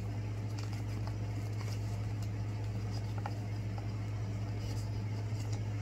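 Faint rustling and light clicks of beauty products and their packaging being handled, over a steady low hum.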